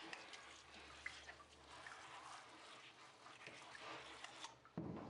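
Faint wet rustling and small clicks of a towel and hose sprayer handled in a stainless steel tub, then a sudden louder rush of water near the end.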